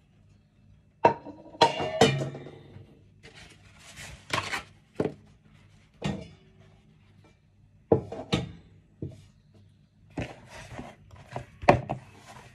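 Scattered knocks and clinks of kitchenware being handled, a few of them ringing briefly, the loudest cluster about a second or two in.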